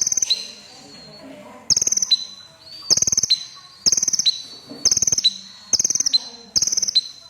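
Kolibri ninja sunbird (red-breasted 'damer') singing loudly: a repeated phrase of short, rapid, high chattering trills, mostly about one a second after a pause near the start, each trailing off into a thin, steady high whistle.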